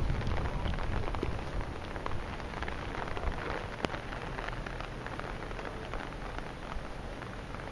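Typhoon rain falling steadily: many small drop ticks over an even hiss, with a low wind rumble on the microphone dying away in the first second or so.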